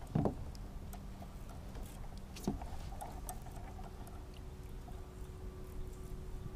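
Sounds of casting and fishing from a plastic kayak: a dull thump as the cast is made and a second knock about two and a half seconds in, with faint small ticks over low wind and water noise.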